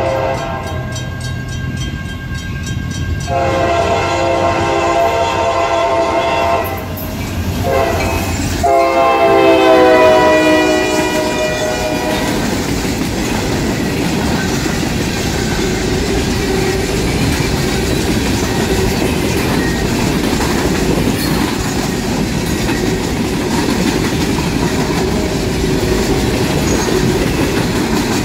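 A diesel locomotive's air horn sounds the grade-crossing pattern on an EMD SD40-2, over the engine's low rumble. The tail of one blast is followed by a long, a short, and a final long blast whose pitch drops as the locomotive passes. For the rest of the time, empty cross-tie cars roll past with a steady rumble and clatter of wheels on rail.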